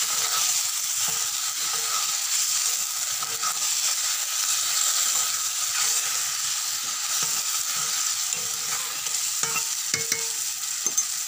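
Raw mango pieces sizzling steadily in hot spiced oil in a kadhai just after water is poured in, while a spatula stirs and scrapes through them; a few sharp spatula knocks against the pan near the end.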